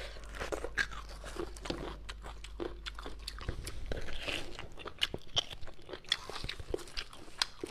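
A person eating beef bone marrow close to the microphone: chewing and biting, heard as many short, irregular clicks.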